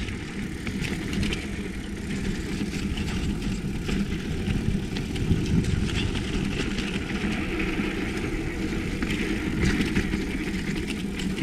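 Mountain bike rolling fast down a rough dirt trail: a steady rumble of tyres and wind on the camera microphone, with frequent rattles and knocks as the bike hits bumps.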